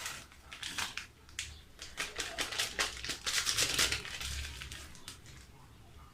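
Crinkling and rustling of a small sachet of baking powder being handled and opened, with scattered sharp clicks and a denser stretch of rustling about three seconds in.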